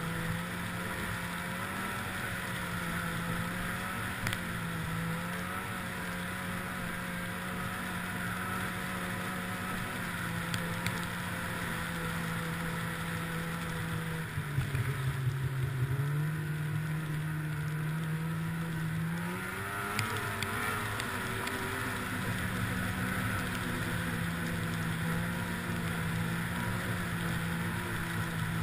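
Snowmobile engine running at a steady cruise while riding a trail. About halfway through, the engine note drops as the throttle eases off, then climbs back up to cruising pitch.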